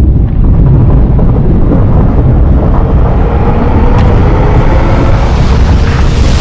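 Loud, steady deep rumble with a rushing noise over it, a film sound-effects mix of a ship rolling over. A few faint sustained tones sit under it.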